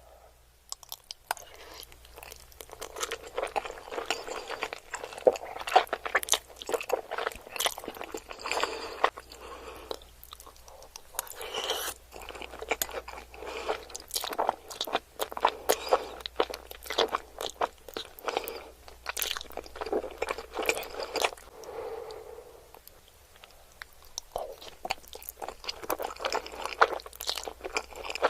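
Close-miked eating: a person chewing creamy Alfredo pasta, with dense, irregular wet smacks and clicks of the mouth. There is a quieter lull a little after the middle.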